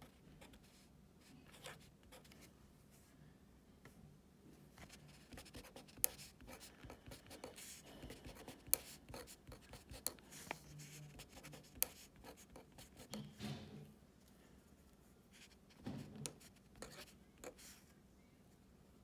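Green felt-tip pen writing on a paper worksheet: faint scratching strokes of handwritten figures, with a few sharp ticks among them.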